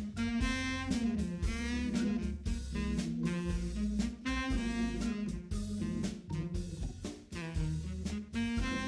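Jazz music with a saxophone melody over bass and drum kit.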